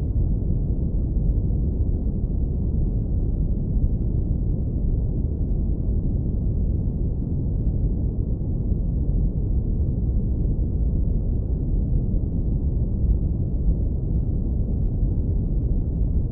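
Steady brown noise, low-pass filtered so that only a deep, even rumble remains, with the energy concentrated at the very bottom and nothing high.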